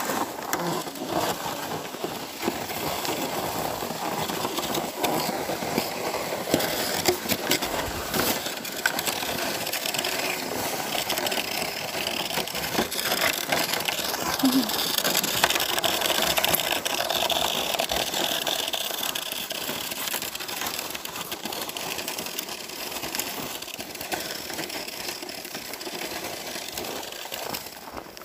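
A sled sliding down a packed-snow track: a continuous scraping, rushing noise with many small crackles and clicks, starting suddenly and dying away near the end.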